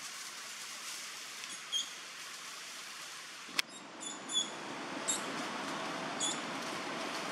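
Short, high-pitched animal chirps, several of them about a second apart, over a steady outdoor hiss. A single sharp click comes about three and a half seconds in.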